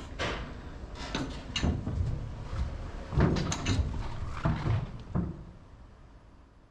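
Electric car rolling out of a battery-swap station's platform: a run of irregular clunks and knocks over a low rumble, heaviest about halfway through, then fading away near the end.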